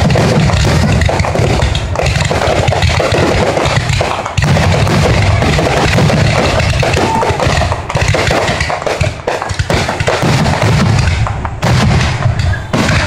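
Fireworks going off in a rapid, continuous barrage: deep booms overlapping with sharp cracks and crackling, loud throughout, the bursts coming more separately near the end.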